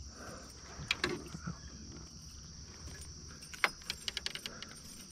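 Insects chirring steadily in the background, with scattered small metallic clicks as a spinnerbait's hook and wire are worked free of a small northern pike's mouth by hand, thickest about three and a half seconds in.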